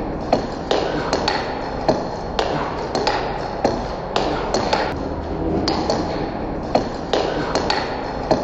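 Table tennis rally of continuous forehand drives close to the table: the celluloid ball clicks off a racket faced with tacky (sticky) rubber and bounces on the table, making a quick, slightly irregular run of sharp clicks, two or three a second.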